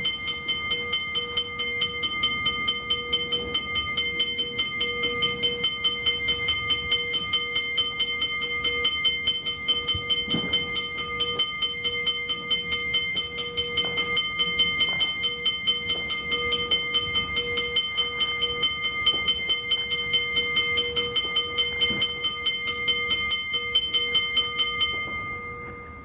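Railroad crossing signal bell ringing continuously in rapid, even strokes, with its bright metallic tones hanging between strikes. Near the end it stops and the ring fades away.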